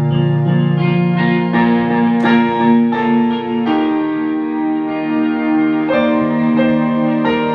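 Electric piano playing sustained chords that change every second or two, with an electric guitar playing along.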